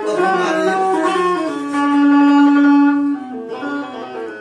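Indian banjo (benjo), a keyed string zither, playing a melody: a quick run of notes, then one long held note about a second and a half in, then a few more short notes.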